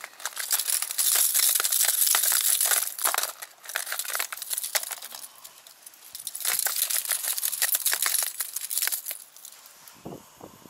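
Hard plastic fishing lures with treble hooks clattering and clicking against each other and an open plastic tackle box as a hand rummages through it, in two busy spells of about three seconds each with quieter rattles between. A few duller knocks near the end as a lure is lifted out and handled.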